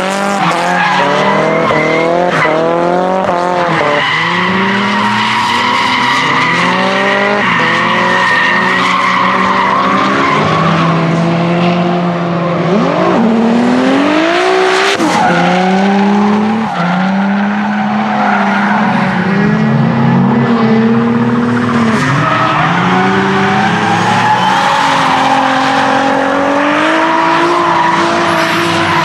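Nissan 200SX S13 with a swapped twin-turbo 3.8-litre V6 (Nissan GT-R VR38DETT) drifting: the engine note climbs and drops back over and over as the throttle is worked, over the squeal and hiss of the spinning, smoking rear tyres.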